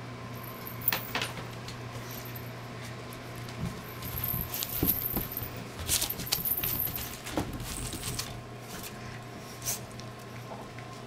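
French bulldog puppy tussling with a bundle of crinkly red and green ribbons: a run of rustles and light jingly crackles, busiest in the middle, with a sharp click about a second in. A steady low hum runs underneath.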